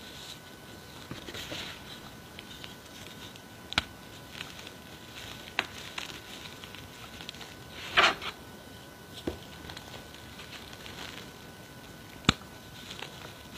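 Gloved hands squeezing and crumbling reformed gym chalk in a plastic tub: soft crunching and rustling of chalk powder, with a few sharp cracks and one louder crunch about eight seconds in.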